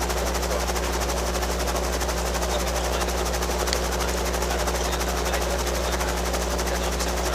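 Robinson R22 helicopter running: a steady drone of piston engine and rotor with a fast, even beat that does not change.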